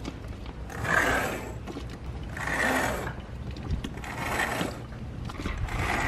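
Mainsail halyard being hauled hand over hand, the rope rasping through its blocks in four long pulls about a second and a half apart.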